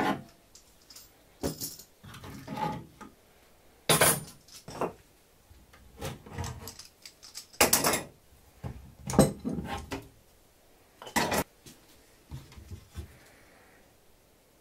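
Steel bar clamps being loosened and taken off glued wooden parts: a string of separate metallic clacks and rattles as the clamps slide and are set down, the loudest about four, eight, nine and eleven seconds in.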